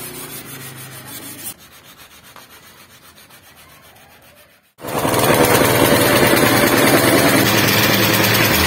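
Hand sanding of a car's painted body panel with a sanding block, the paper rubbing back and forth over the paint. It is fairly quiet at first, then turns much louder and denser about five seconds in.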